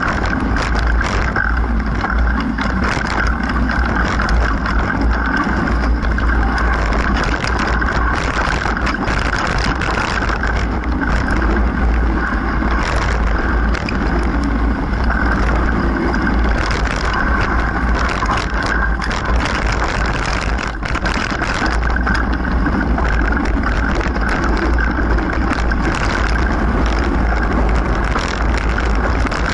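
Mountain bike riding fast over a dirt trail: constant wind rumble over the microphone mixed with tyre noise and frequent rattles and knocks from the bike over rough ground, easing briefly twice.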